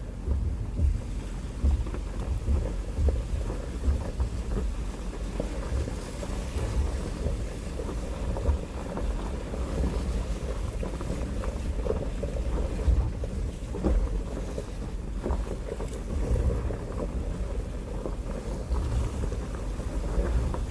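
2016 Jeep Wrangler Unlimited Rubicon's 3.6-litre V6 running at low revs with a low drivetrain rumble as the Jeep crawls over a rough dirt trail. The body and suspension jolt with a few brief knocks.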